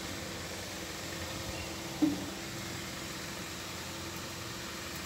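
Steady low hiss and hum of a lit gas stove burner under a pan of heating oil, with one short light clink about two seconds in.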